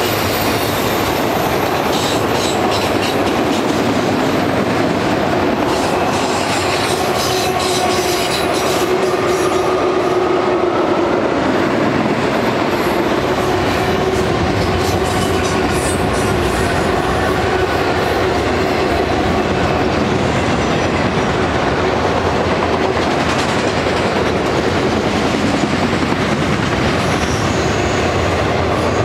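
Loud, steady sound of freight cars rolling past, steel wheels clattering on the rails, with a faint steady wheel squeal on the curve. Low rumble grows in the second half as a diesel locomotive in the train draws near.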